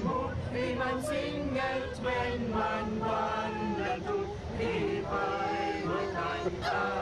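A group of men and women singing together without accompaniment, in unison, inside a coach: the songs they used to sing as children.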